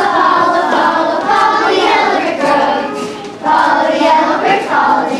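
A chorus of children singing together on a theatre stage, with a short break about three seconds in before the voices come back in.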